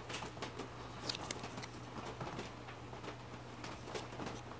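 Faint hand-handling noise: small scattered clicks and rustles as a square of thin sheet cork is handled and positioned over a saxophone key, over a steady low hum.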